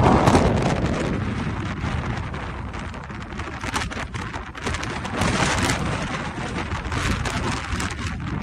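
Snowstorm wind gusting over the microphone: a heavy low rumble that eases over the first second or two, with a dense crackling patter throughout.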